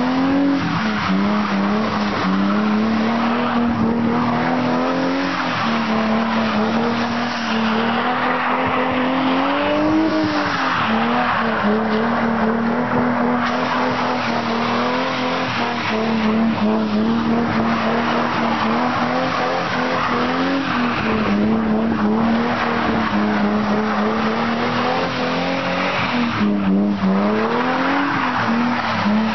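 Car engine held at high revs during a drift, with tyres squealing and skidding on a wet road. The engine note swings up and dips back several times.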